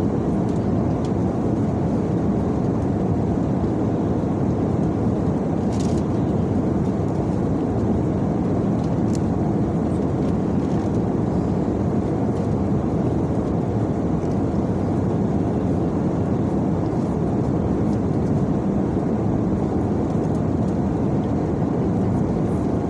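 Steady aircraft cabin noise: a constant low rushing drone, with a faint click about six seconds in.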